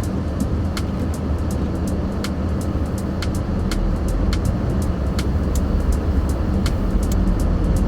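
Car driving on a snowy road: a steady low rumble of engine and tyres, with many small sharp ticks scattered through it.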